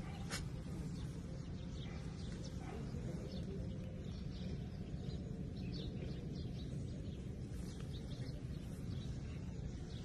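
Birds chirping in short, scattered calls over a steady low background rumble.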